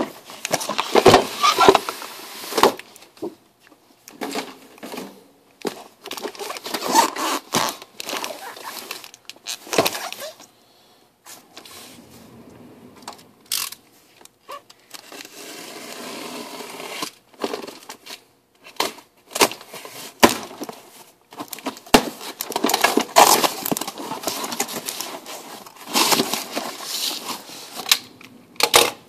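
Utility knife cutting packing tape on a cardboard shipping box while the box is handled. Irregular bursts of cardboard scraping and rustling with sharp knocks, broken by short pauses.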